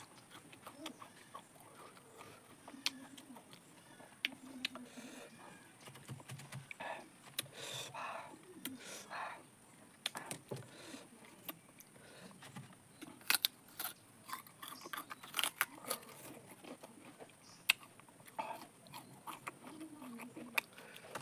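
Close-miked eating sounds: a tamarind pod's brittle shell crackling and clicking as it is peeled by hand, then chewing of the sticky pulp. The sharp clicks come most often in the middle of the stretch.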